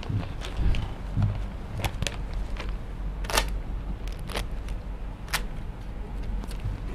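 Handling noise from a large sheet of grid paper being carried and held up against a whiteboard: a few dull thumps in the first second and a half, then a handful of sharp, separate clicks, over a steady low hum.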